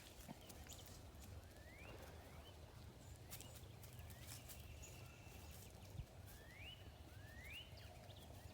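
Faint outdoor farmyard ambience: a bird gives short upward-sweeping chirps about five times, over a low steady hum with scattered light clicks and rustles.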